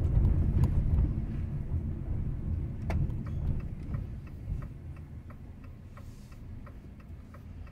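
Low road-and-engine rumble of a car that fades over a few seconds. Through the second half there is a steady light ticking, about three ticks a second.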